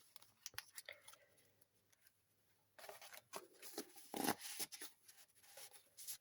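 Paper and card rustling and sliding as the pages and tags of a handmade junk journal are handled, with a few soft taps. The rustling is busiest and loudest from about three to five seconds in.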